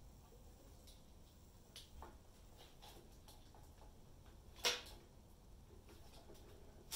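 Handling of a plastic gas can and its spout at a motorcycle's fuel filler neck: a few faint clicks and knocks, the sharpest a little after halfway.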